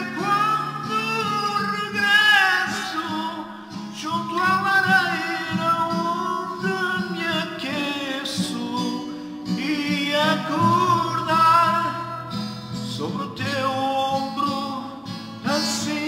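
A man singing a Portuguese ballad while strumming an acoustic guitar, his voice gliding over steady guitar chords.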